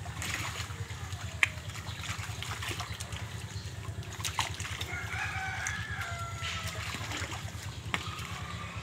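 A rooster crows once, from about five seconds in for two seconds or so. Under it, water sloshes and splashes with sharp knocks as a piglet carcass is turned in a basin of scalding water, over a steady low hum.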